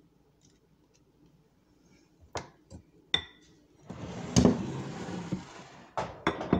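A wire whisk clinking against a glass mixing bowl three times, then about two seconds of whisking and scraping through creamed butter and sugar in the bowl, with a sharp clink partway. Two more clinks near the end.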